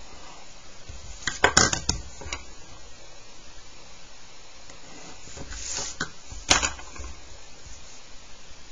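Drawing instruments handled on paper over a desk: a cluster of sharp clicks and knocks about a second and a half in as a compass and plastic set square are put down, a pencil scratching a line along the set square, and one more sharp click a little later.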